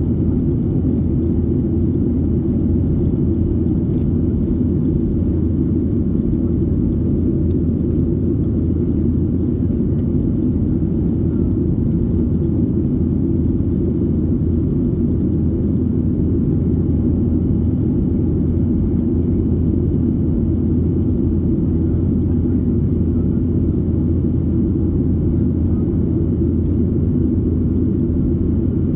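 Cabin noise of a Boeing 737-800 in flight: a steady low rumble of its engines and the airflow past the fuselage.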